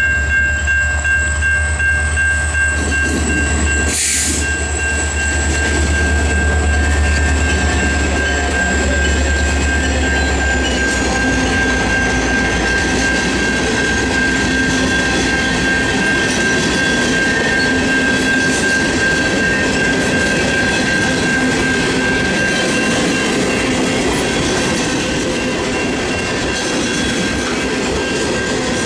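An EMD GP39E diesel locomotive runs past with a low engine sound, then the cars of a long freight train roll by with wheels clicking over the rail joints. The engine's low sound drops away about ten seconds in. A grade-crossing bell rings steadily the whole time, and there is a brief loud rush about four seconds in.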